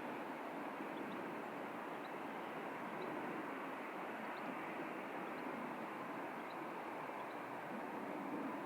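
Steady hiss and rumble of airport apron ambience, with a few faint short chirps.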